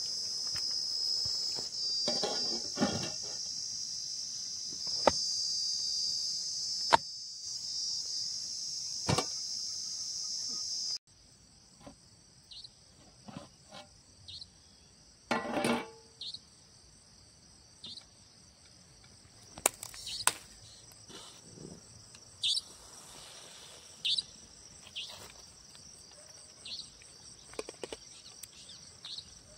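A steady high chirring of crickets, loud for the first eleven seconds, then cut off abruptly and replaced by a fainter cricket chorus. Scattered short clinks and knocks run through it, in keeping with a metal lid and serving spoon against an aluminium cooking pot.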